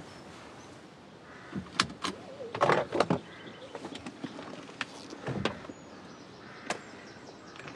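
A run of clicks and knocks from inside a parked car: a car door unlatching and swinging open. The loudest knocks come about three seconds in.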